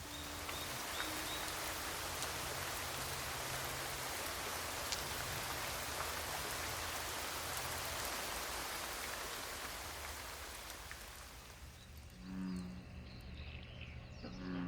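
Heavy typhoon rain falling steadily, with scattered sharper drop hits, fading out about twelve seconds in. Soft background music plays at the very start and again near the end.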